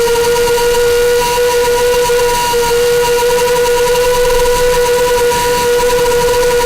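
FPV racing quadcopter with EMAX RS2205S 2300KV brushless motors and propellers, flying with a loud, steady whine that wavers only slightly in pitch.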